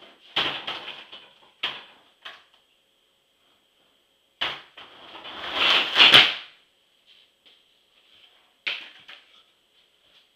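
Skateboard on a hard kitchen floor: the board knocks down several times, and in the middle the wheels roll louder for about two seconds before stopping. A faint steady high tone runs underneath.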